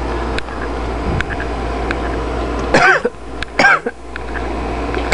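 Steady low hum of room and computer noise with a few faint clicks, broken about three seconds in by two short, pitched vocal sounds less than a second apart.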